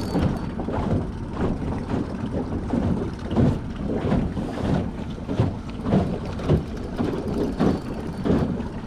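Wind buffeting the microphone aboard an open jon boat, coming in uneven gusts, with water noise around the boat.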